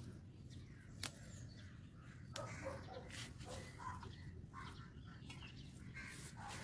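Faint crow caws now and then against a low background hum, with a couple of soft clicks.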